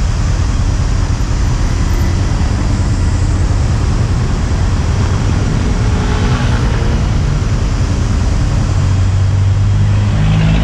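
A motorcycle engine running at low speed while it creeps through stop-and-go city traffic, with the noise of the surrounding cars. Near the end the engine note grows stronger.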